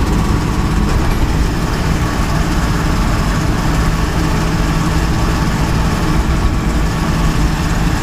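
Land Rover engine and road noise heard from inside the vehicle while it is driven, a steady low drone.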